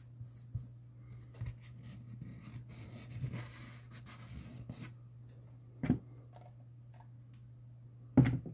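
Small hand-work sounds on a loudspeaker being repaired: light scraping and rubbing, scattered small clicks, and two louder knocks, about six seconds in and near the end, over a steady low hum.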